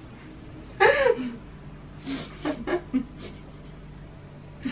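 A woman's vocal moan about a second in, then several short breathy whimpers, made with wet plaster strips covering her mouth and face.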